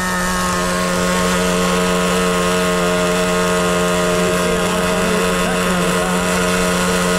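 Traxxas TRX 2.5 two-stroke nitro engine of an RC truck running at a steady high speed, its pitch holding level. It is being broken in on 33% nitro fuel with the needle set a touch rich.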